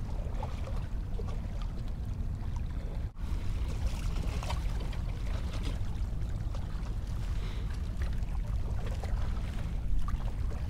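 Steady wind rumble on the microphone over water lapping against the jetty's rocks, broken by a brief drop about three seconds in.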